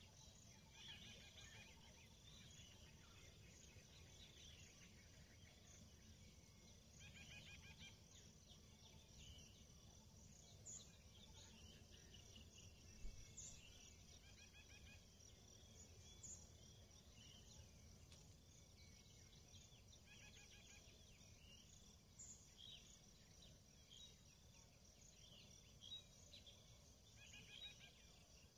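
Faint dawn sounds: a steady high-pitched insect trill with short bird calls repeating every few seconds, over a steady low rumble.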